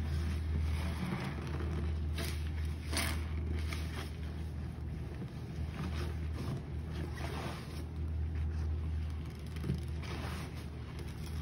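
Rubber-gloved hands squeezing and kneading a sponge in a basin of foamy detergent-and-bleach water: irregular squelching and sloshing swells, over a steady low hum.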